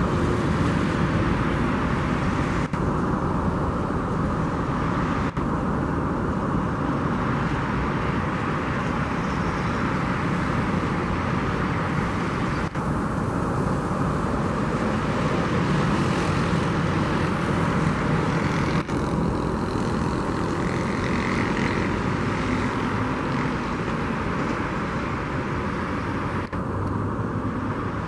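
Boeing 777-300ER's GE90 turbofan engines during landing and rollout: a steady, dense jet noise, heard from a distance.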